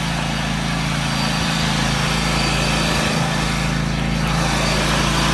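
Small gasoline engine of a lawn mower running steadily at a constant speed.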